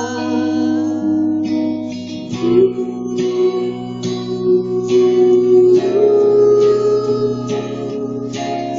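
Live rock band playing an instrumental passage of the song, with guitar to the fore over held chords and a steady drum beat.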